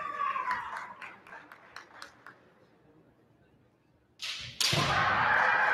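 Drawn-out, high-pitched kiai shouts from female kendo fencers: one shout falling away at the start, then a few light taps, a quiet pause, and a second long shout breaking in suddenly about four seconds in.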